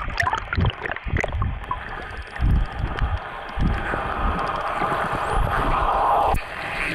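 Water noise on an underwater camera as the swimmer moves just below the surface: irregular low sloshing thumps and bubbling, then a steadier rush from about halfway that cuts off suddenly near the end.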